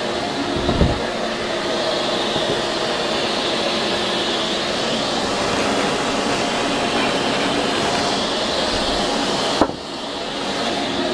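Shop vacuum running steadily with a rushing noise and a faint motor hum. About nine and a half seconds in there is one sharp knock, after which the sound briefly drops and then picks up again.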